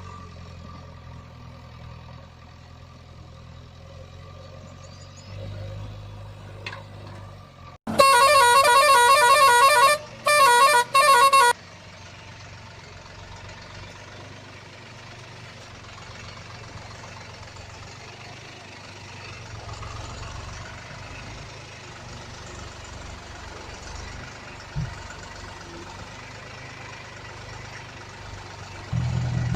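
A heavy engine running low and steady, cut across about eight seconds in by a loud vehicle horn: one long blast of about two seconds, then two short toots.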